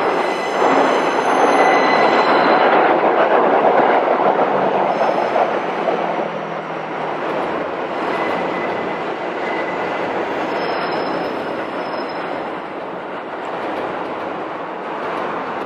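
A train passing close by: a loud, steady rush of wheels on rails, loudest for the first six seconds and then easing off, with a few thin high squeals now and then.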